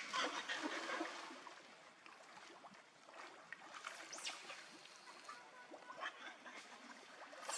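Water splashing and trickling in a pool, loudest in the first second or so, then scattered small splashes.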